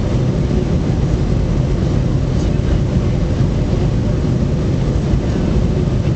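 Steady jet engine and airflow noise inside an airliner's cabin as the plane descends on approach for landing.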